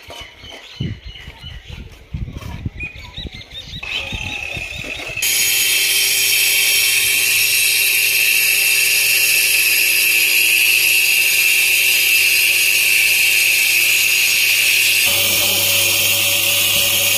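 Electric cutting power tool starting up about five seconds in and running steadily with a loud, high whine. Its sound shifts near the end, as if the load on the cut changes. Before it starts there are a few scattered knocks.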